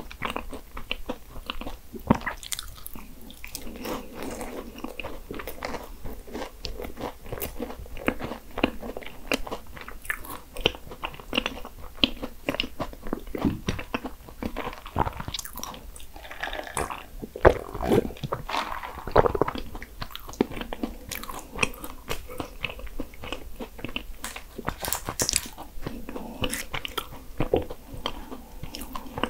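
Biting and chewing Portuguese egg tarts (pastel de nata): the flaky puff-pastry shell crackles and crunches in irregular bursts, with soft chewing in between.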